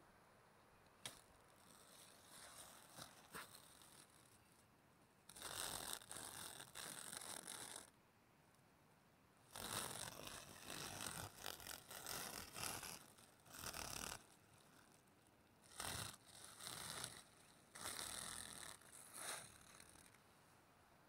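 Clear plastic bag crinkling and rustling as a hand works inside it, in several bursts of a few seconds each, with a few single crackles near the start.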